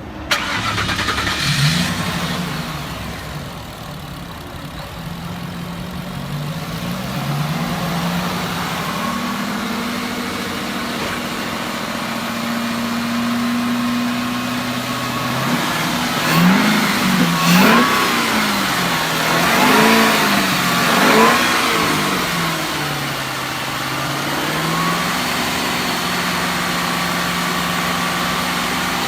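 Supercharged 5.0-litre Boss 315 V8 of a Ford FPV GS starting up and settling into a steady idle. About halfway through it is revved in about four short blips, then drops back to idle.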